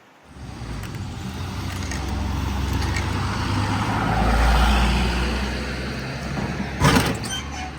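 A motor vehicle's engine running close by, swelling to its loudest about halfway through and then easing off as it passes. A single sharp knock comes near the end.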